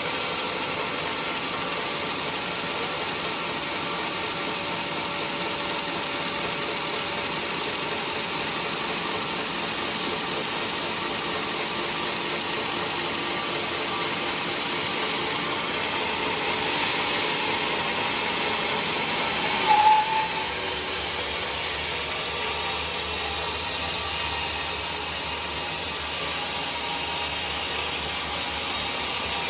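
Sawmill machinery running steadily. About twenty seconds in there is a brief, louder screech.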